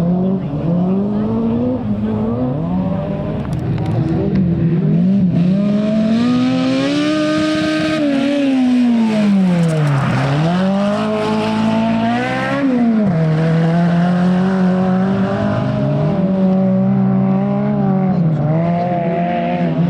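Rally car engine driven hard through a stage, its pitch rising and falling with throttle and gear changes. About ten seconds in the note drops steeply and climbs straight back as the car brakes and accelerates away. A sharp drop about a second later marks an upshift, and it runs on at a steady pitch.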